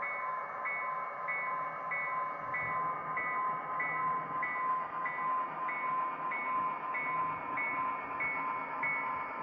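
HO scale model diesel locomotive's sound decoder ringing the engine bell about one and a half strokes a second, over a steady diesel engine sound as the GP15-1s pull away.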